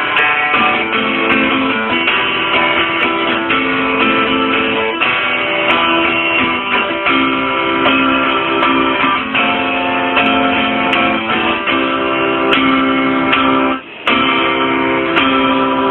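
Acoustic guitar playing chords without singing, with a brief break about fourteen seconds in before the playing picks up again.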